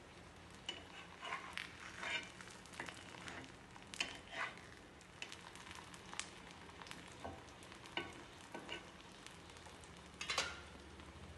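Ghee sizzling faintly under stuffed sweet flatbreads (paruppu poli) on a hot dosa tawa over low heat, with a few scrapes and taps of a metal spatula on the pan, the clearest about 4 seconds in and again near the end.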